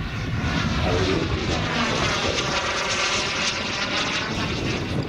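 Single B300F model jet turbine of a 1/5 scale RC English Electric Lightning flying past, a steady loud rushing jet noise with a swirling, sweeping tone that bends down and back up as it goes by.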